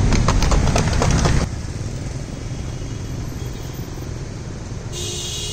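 Steady street traffic noise, louder for about the first second and a half and then dropping to a lower, even level.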